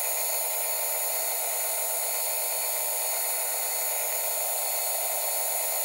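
Milling machine running steadily, its end mill cutting the aluminium of a Honda CB450 crankcase: an even, continuous machining noise with no pauses.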